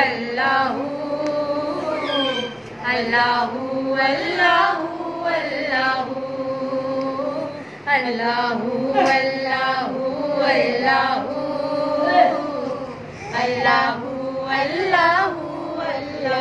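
A woman singing a hamd, an Urdu devotional hymn to God, in long, drawn-out melodic phrases with brief pauses between them.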